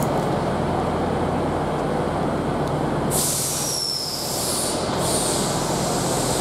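Great Western Railway Class 158 diesel multiple unit standing with its underfloor diesel engine idling, a steady low hum. About three seconds in, a loud hiss of air from the train's pneumatic system starts and carries on, with faint whistling tones in it.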